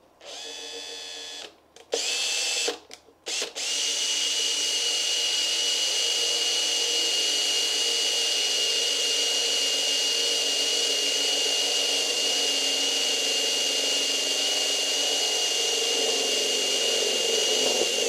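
Cordless drill boring a hole through a carbon fibre panel into a wooden board beneath. A few short trigger pulls in the first few seconds, then a steady run with a constant high whine that stops near the end.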